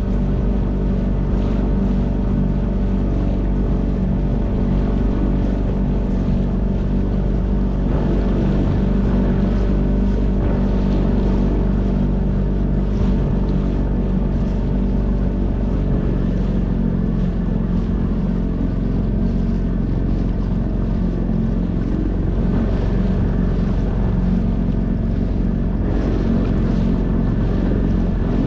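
Small outboard motor running at a steady speed, pushing an inflatable boat along, with the hiss of water rushing past the hull.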